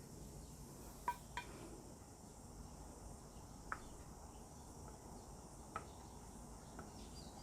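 Quiet room tone with a few faint, sharp ticks: two close together about a second in, one near the middle and one past the halfway point.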